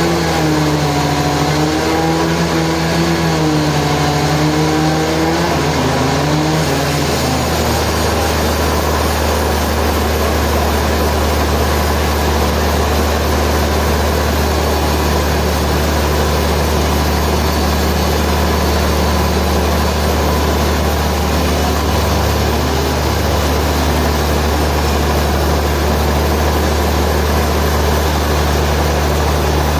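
Sawmill machinery running loud and continuous. An engine's pitch wavers up and down for the first six seconds or so, then settles into a steady dense drone with a constant low hum.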